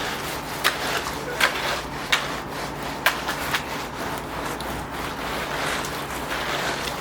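A tamp being dragged across wet concrete in a side-to-side sawing stroke to screed the slab level: repeated rough scraping and rubbing strokes, with short sharp scrapes about every half second to a second in the first few seconds.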